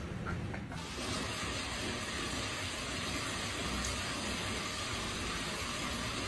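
Water running steadily from a bathroom tap: a constant rushing hiss that starts under a second in.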